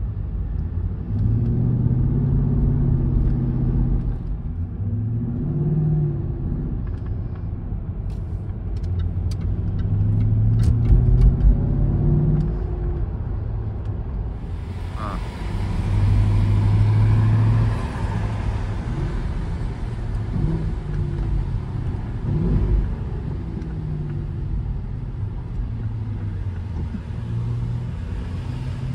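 Jaguar XKR's supercharged V8 heard from inside the cabin while driving, its note climbing and dropping back several times as the car pulls away and changes gear, over steady road and tyre noise.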